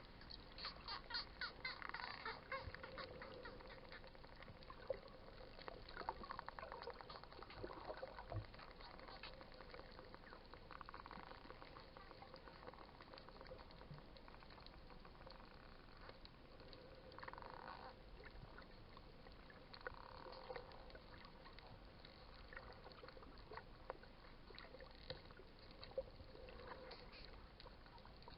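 Wild dolphins calling underwater, faint: a rapid train of clicks near the start, then several short buzzy squawks scattered through, over a low water hiss.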